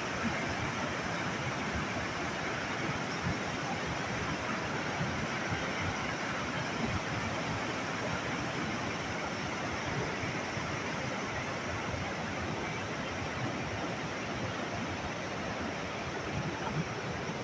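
Kali Gandaki river flowing: a steady, unbroken rush of water.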